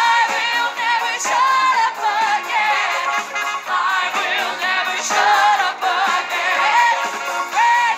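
Live musical-theatre song: singing with wavering held notes over a band backing track with a steady beat.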